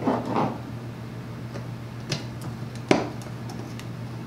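Metal tool handling on a steel swivel caster as a socket ratchet is fitted to the wheel's axle nut: a few scattered clicks and taps, the sharpest about three seconds in, followed by a few faint ticks.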